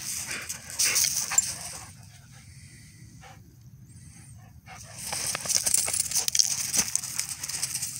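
Two dogs play-fighting: scuffling on loose ground with dog noises and jingling collar tags. It comes in two flurries with a quieter lull in the middle.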